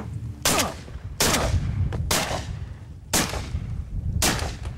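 A volley of five shotgun shots, about a second apart, each a sharp blast with a short fading echo, fired at waterfowl flying overhead.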